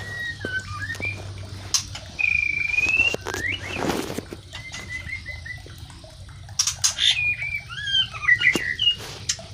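White-rumped shamas from a mating pair singing: a run of short whistled phrases that slide up and down, mixed with sharp clicks. A brief rustle comes about four seconds in. A steady low hum runs underneath.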